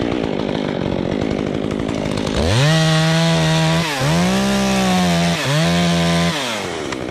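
Top-handle chainsaw running at low speed, then opened up to full throttle about two and a half seconds in to cut through a tree limb, its pitch dipping briefly twice under load before it eases off near the end.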